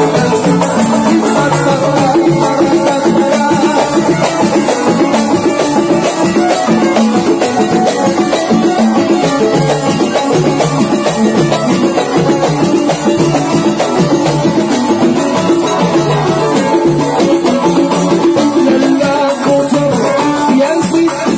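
Moroccan Issawa ensemble music: small ta'rija goblet drums and a large double-headed tbel drum beating a steady rhythm under a continuous melody, loud and unbroken.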